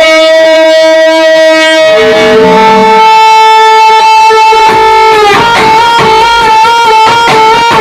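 Loud music played through a DJ sound system being sound-checked. A lead melody holds long notes and steps between them, and a fast beat comes in about five seconds in.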